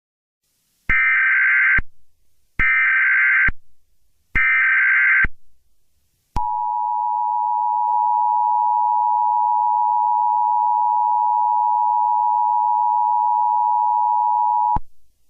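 Emergency Alert System tones: three short bursts of buzzy SAME header data, then the steady two-tone attention signal, held for about eight seconds before it cuts off.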